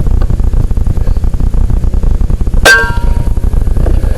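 A single PCP air rifle shot about two-thirds of the way in: a sharp crack followed by a brief metallic ring. A steady low rumble, like wind on the microphone, runs underneath.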